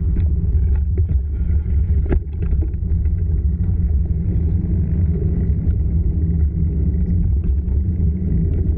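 Steady low rumble of wind buffeting an action camera's microphone while riding a bicycle, with a few sharp clicks in the first couple of seconds.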